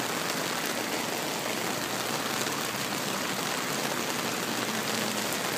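Steady rain falling on a wet tarmac road and pavement: an even hiss.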